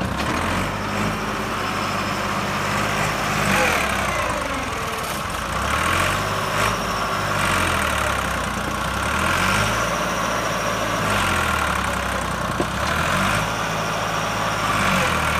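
Massey Ferguson 260 Turbo tractor's diesel engine working hard, its speed rising and falling every few seconds, as the tractor strains to pull a soil-loaded trolley with its rear wheels dug into soft ground.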